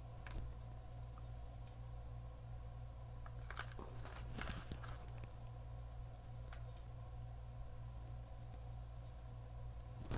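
Quiet, scattered clicks and crackles of a clear plastic snack tray being handled, with a small cluster of them about four seconds in, over a steady low hum.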